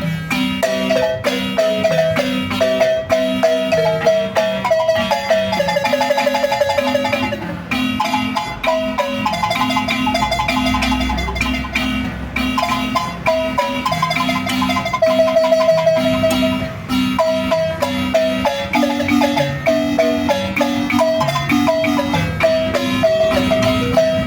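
Marimba playing a lively tune. The melody has fast rolled notes, over a steady bass line in the low bars.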